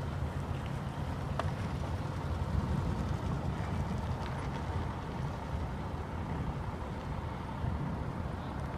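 Steady low rumble of a car engine running at low speed while it manoeuvres a box trailer, with one faint click about a second and a half in.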